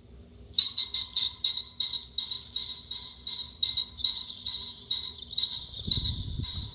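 Played-back recording of sounds for dogs: a rapid run of high-pitched chirps, about three to four a second, starting about half a second in, with a low thump near the end.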